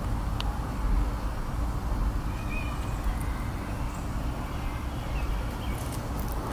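Steady low outdoor background rumble, with a few faint ticks and faint short high chirps.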